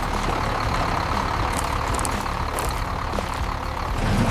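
A heavy vehicle's engine running steadily at low speed, with a lower droning note growing a little louder near the end.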